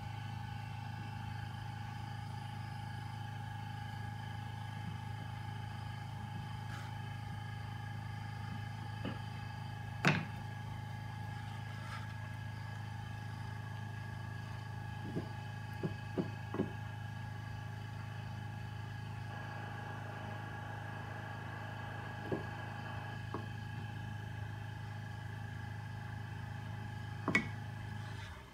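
A steady electrical machine hum with a low drone and a thin higher tone, which cuts off suddenly at the very end. Over it come a few light knocks and taps of hands and a tool handling a clay mug on a wooden board: one about ten seconds in, a quick cluster of three a few seconds later, and more near the end.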